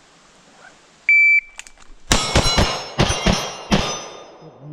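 A shot timer's high electronic beep, then a pistol fired in three quick bursts: three rapid shots, two shots, then a single shot, as in the 3-2-1 drill.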